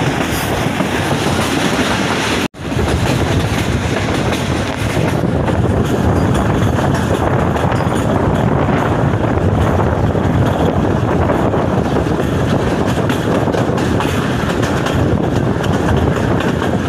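Passenger train running along the track, heard on board: a steady rumble with the clatter of wheels over rail joints. The sound cuts out for an instant about two and a half seconds in, then resumes.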